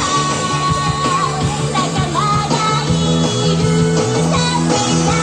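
A song with a singing voice over a steady, repeating bass line.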